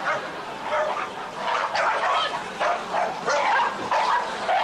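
Small dogs barking and yapping, one short bark after another in quick succession.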